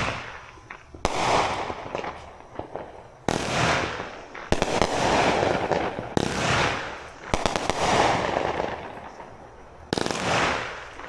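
Consumer fireworks going off: about six loud bangs a second or two apart, each followed by a fading crackle.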